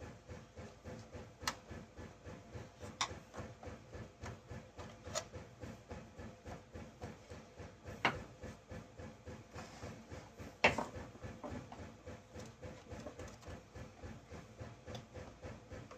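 Scattered clicks and knocks of hand tools against a chainsaw's plastic housing as it is worked apart, the loudest about eight and eleven seconds in, over faint handling rustle.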